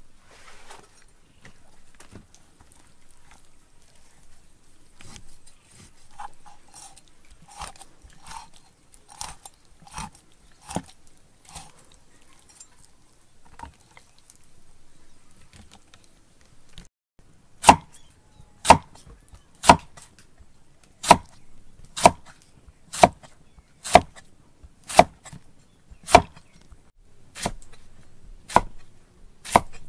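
Cleaver blade striking a round wooden chopping board as a whole fish is cut: lighter knocks about twice a second, then, a little past halfway, heavy chops about once a second, each a sharp knock with a brief ring.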